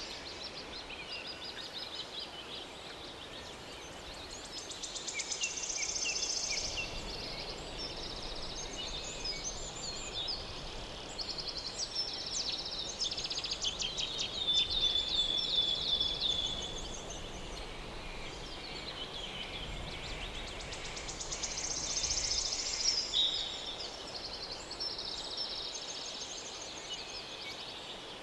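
Birds chirping and singing outdoors, many short, varied calls and trills layered over a steady faint hiss; the calls grow busiest in the middle and again near the end.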